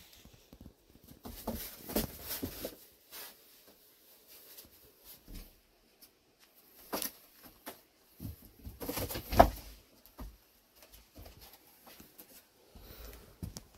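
Irregular rustling, bumps and knocks of a phone being handled while moving among stored items, with one sharp knock about nine seconds in.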